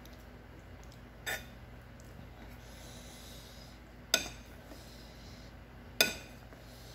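Spoon and chopsticks clinking against a ceramic bowl while eating noodles: three sharp clinks, each with a brief ring. The first, about a second in, is soft; the two near four and six seconds are louder.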